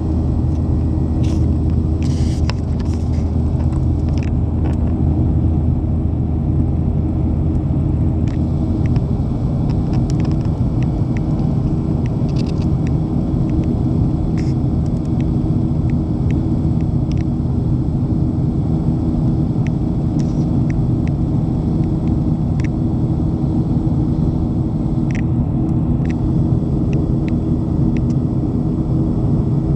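Jet airliner's engines and airflow heard inside the passenger cabin: a steady, loud rumble with a low hum, and a few faint clicks from cabin fittings now and then.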